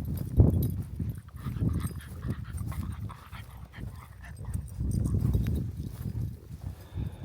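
Gusty wind buffeting the microphone in rumbling swells that rise and fall every second or two.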